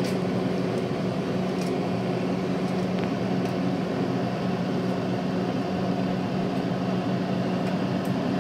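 A steady fan-like hum with a low tone, over the sizzle of fish balls frying in oil in a small saucepan. A few light clicks of metal tongs against the pan.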